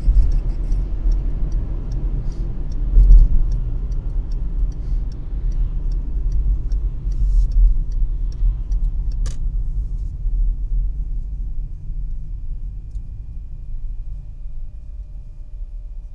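Car running on the road, heard from inside the cabin: a low rumble of engine and road noise that slowly fades toward the end as the car slows. For the first six seconds or so there is a quick, regular ticking, about three ticks a second, and one sharp click comes about nine seconds in.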